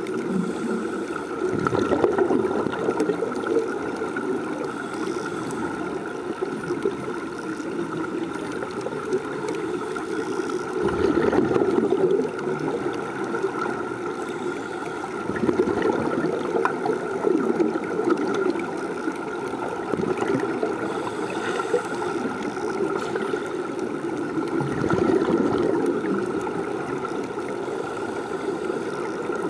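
Continuous underwater bubbling and gurgling, the air escaping from sea-walking helmets as heard by a submerged camera, over a steady hum.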